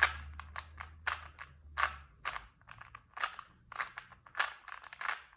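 Plastic Rubik's cube layers being twisted in quick succession: a dozen or so sharp clacking turns, about two to three a second, the last-layer moves that finish the solve.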